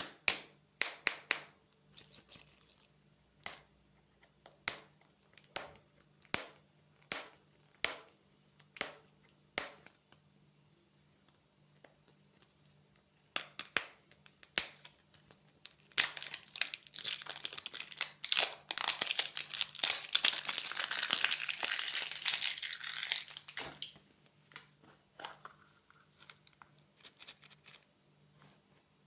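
A run of sharp clicks about one a second, then plastic candy wrappers crinkling and tearing for several seconds before it dies down near the end.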